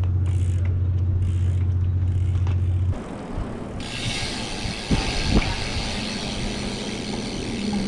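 Background music with a heavy steady bass, cut off abruptly about three seconds in. Then comes the wind rush and rolling noise of a bike-mounted camera as a BMX rides along pavement, with a few sharp knocks from bumps about five seconds in.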